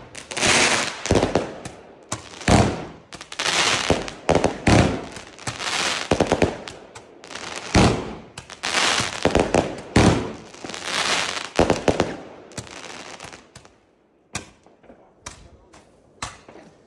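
Delta Fire B40-496 40-shot fireworks battery firing in fast succession, shot after shot launching and bursting with loud bangs for about twelve seconds, then dying away with a few scattered cracks.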